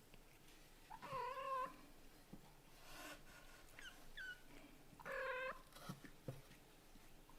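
Kittens meowing: two loud, drawn-out meows, about a second in and about five seconds in, with a couple of faint short high calls between them.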